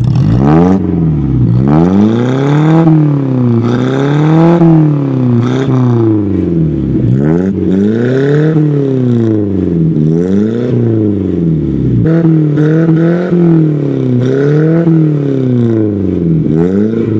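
1971 Datsun pickup's swapped-in Datsun 1200 (A12) four-cylinder engine, heard at its exhaust tip, being blipped over and over: about a dozen quick revs, the pitch climbing and falling back each time, roughly one a second.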